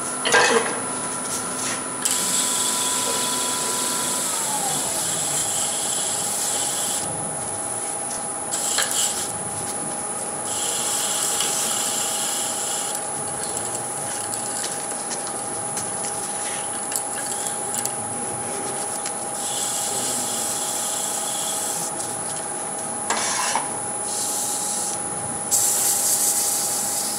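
Wood lathe running with a steady motor whine that drops in pitch about four seconds in, while a turning tool cuts the spinning wooden goblet in repeated bursts of hissing, scraping noise a few seconds long.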